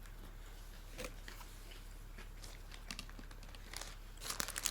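A person chewing food with a few faint mouth clicks, then plastic food packaging crinkling from about four seconds in. A low steady hum runs underneath.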